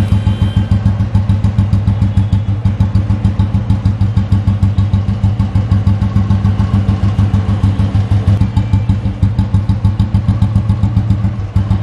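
Royal Enfield Bullet Machismo's single-cylinder four-stroke engine idling, a steady, even beat of exhaust pulses from the chrome silencer.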